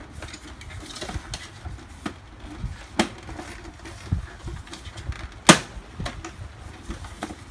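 Hard plastic parts of a Bowser figure clicking and knocking as they are handled and forced together, with the sharpest click about five and a half seconds in.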